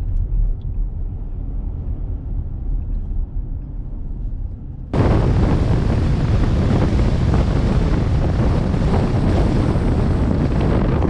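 Low road rumble from a moving vehicle, then about five seconds in a sudden, much louder rush of wind noise on the microphone that carries on steadily.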